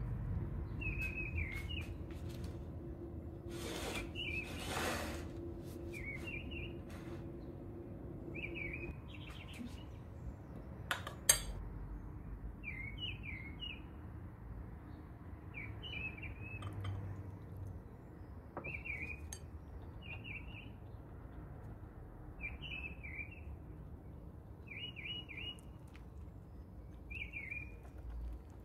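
Small birds chirping, short chirps every second or two, with one sharp clink, the loudest sound, about eleven seconds in.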